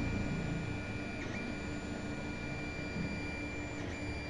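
Creality Ender 3D printer running mid-print: its stepper motors give a steady whine of several high tones over a low rumble, the tones dipping briefly twice, about a second in and again near the end.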